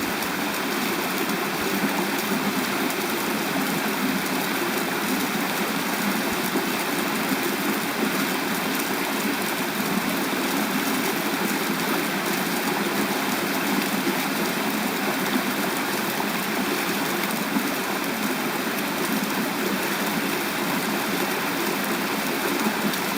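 Steady rush of mountain-stream water spilling over a check dam.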